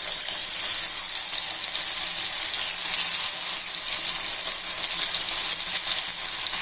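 Pieces of elephant foot yam (karunai kizhangu) deep-frying in hot oil in a kadai: a steady sizzle with fine crackling throughout.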